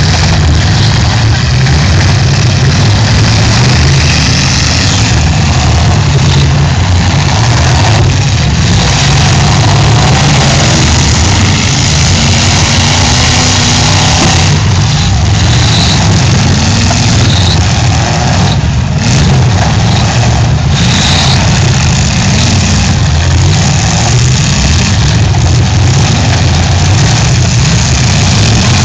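Demolition derby cars' engines running and revving loudly in a steady, dense din.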